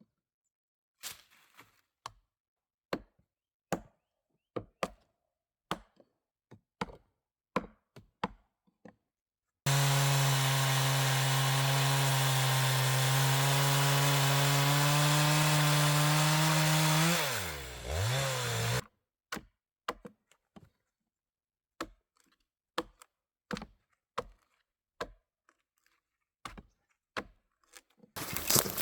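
Hollowing out a log: sharp knocks of a tool striking wood, about one a second, then a cordless electric chainsaw runs steadily for about seven seconds, winds down with a falling pitch and stops, and the knocking starts again.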